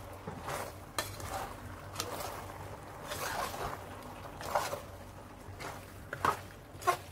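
A spoon stirring pasta in meat sauce in a metal pot, with irregular clinks and knocks against the pot's side and soft wet shuffling of the pasta between them.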